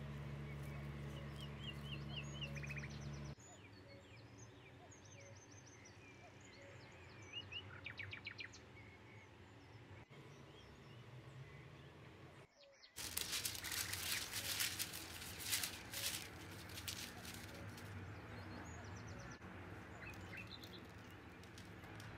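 Small birds chirping in short repeated calls and trills over faint background noise. A low steady hum cuts off about three seconds in, and for about four seconds past the middle a dense run of rapid clicks is the loudest sound.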